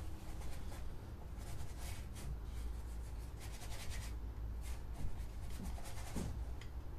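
Paintbrush strokes on a stretched canvas: a series of short, irregular brushing and scratching strokes over a low steady hum.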